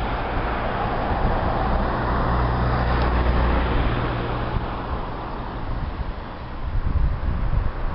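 Motor vehicle traffic: a steady rushing with a low engine hum that grows louder about three seconds in and eases off later. Gusts of wind buffet the microphone near the end.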